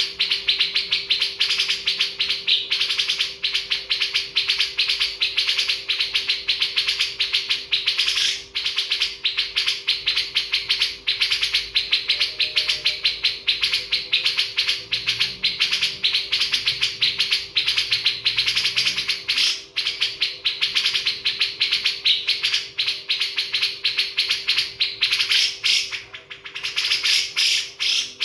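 Many birds chirping in a dense, continuous chatter of rapid chirps, with a steady low hum underneath.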